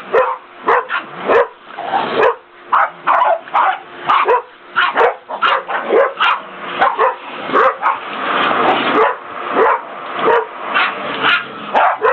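A pack of small terriers barking and yapping at a vacuum cleaner, with sharp overlapping barks coming about two a second and no pause.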